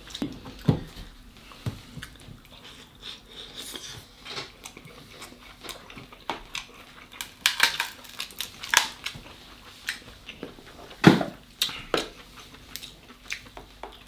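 Shell of a cooked king crab leg being cracked and snapped open by hand and the meat pulled out, with scattered sharp cracks and clicks and some chewing; the loudest crack comes about three-quarters of the way through.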